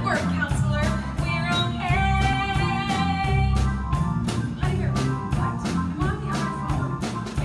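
Live rock pit band (drum kit, bass and guitar) playing a musical-theatre song while a woman sings, holding one long note from about two seconds in to about three and a half seconds in. The band is heard as picked up from the audience seats of an auditorium.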